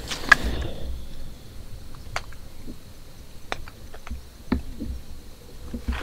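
Brush and leaves rustling as someone moves through thick undergrowth, stopping within the first second. Then quiet woods with a few scattered small ticks and snaps, and low rumbles of wind on the microphone.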